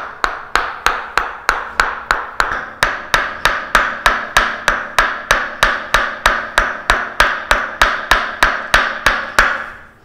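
Wooden mallet striking a wooden rod pressed against the shoulder: a steady, even knocking of about four blows a second, part of a percussive frozen-shoulder treatment. The knocking stops just before the end.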